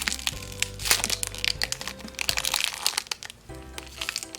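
Crinkling and crackling of a handmade squishy's packaging as it is handled, in many quick irregular clicks, over background music.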